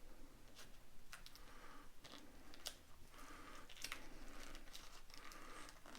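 Retail packaging being cut and torn open with a small Victorinox Rally pocket tool: faint crinkling and tearing with scattered clicks and short scrapes.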